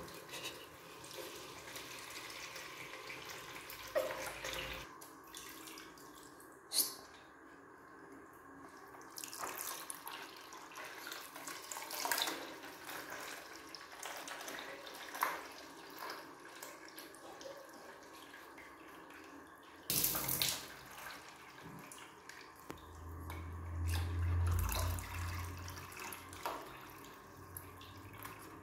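Tap water pouring in a steady stream into a plastic bucket half full of water, with a few brief splashes.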